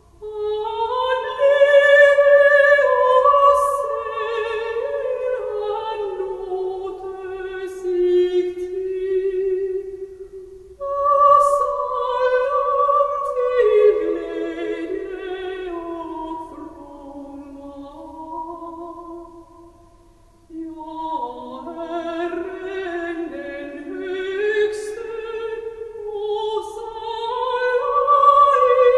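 Operatic singing played back over hi-fi loudspeakers: long held notes with vibrato, in phrases that break off about ten seconds in and again near twenty seconds before the voice comes back.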